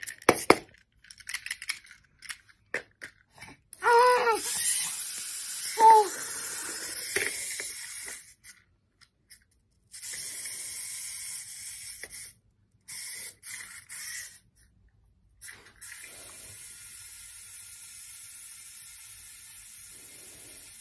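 Hissing noise in several stretches, the longest and steadiest over the last five seconds, with a baby's short voice sounds about four and six seconds in and a few light clicks at the start.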